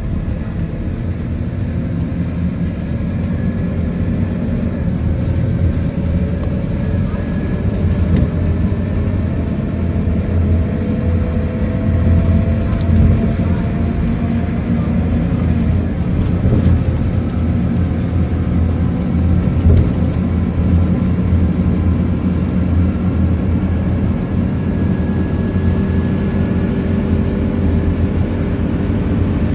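Scania K230UB single-deck bus with a five-cylinder diesel, heard from inside the passenger cabin while driving: a steady low engine drone with road noise, and a fainter whine that rises slowly in pitch as the bus gathers speed.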